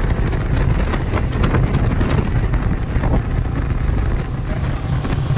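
Wind buffeting the microphone over a steady low rumble of a moving vehicle.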